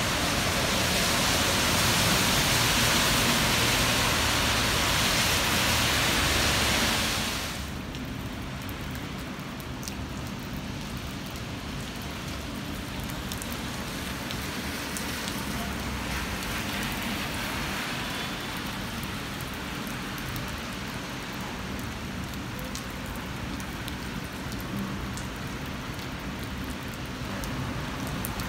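Steady rain falling on wet pavement and the street. It is louder for about the first seven seconds, then drops suddenly to a softer hiss with scattered ticks of individual drops.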